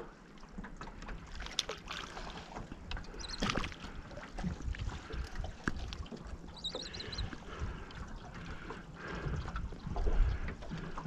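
Small waves lapping against the hull of an aluminium dinghy, with wind on the microphone and scattered knocks and clicks from handling fishing gear in the boat.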